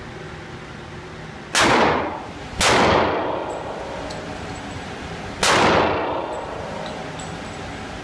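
Three pistol shots in an indoor shooting range, each a sharp crack followed by a long echoing ring that dies away. The first two are about a second apart, and the third comes about three seconds later.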